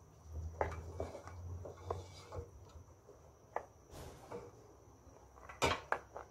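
Silicone spatula stirring a thick sweet-potato gravy in a non-stick pot, with scattered soft knocks and scrapes against the pot, the loudest a little before the end.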